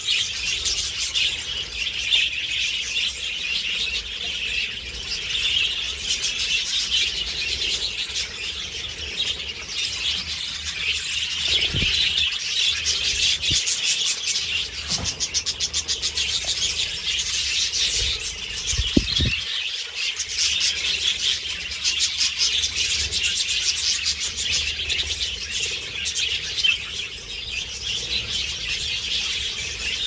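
A large flock of budgerigars (parakeets) chattering and warbling continuously, a dense mass of overlapping chirps. A few low, dull bumps come through near the middle.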